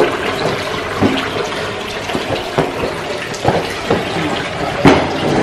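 Footsteps splashing through shallow water on a concrete tunnel floor, several irregular steps over a steady wash of water noise, one sharper splash near the end.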